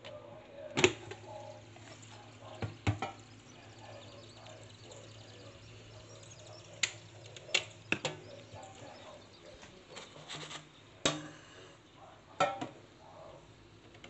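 Sharp plastic clacks and knocks as the basket drawer of a Kmart Anko 1.5 litre air fryer is pulled out and handled, the loudest about a second in. A quick cluster of clicks midway fits the power plug being pulled from the wall socket.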